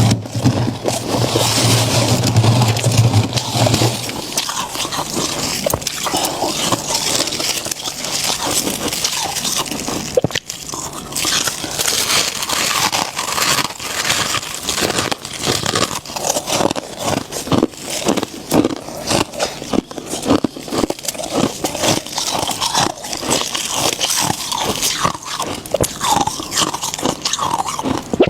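Close-miked crunching and chewing of freezer frost, a dense run of crisp crunches. A low steady hum sounds under it for the first few seconds, then stops.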